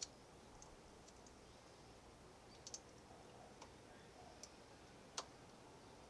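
Near silence broken by a few faint, sharp clicks, the loudest about five seconds in: small handling sounds of hands working at a motorcycle's handlebar clamp.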